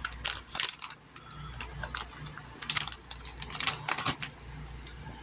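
Hands working a raw chicken breast, a finger pushed into a pocket cut in the meat: an irregular run of small wet clicks and crackles.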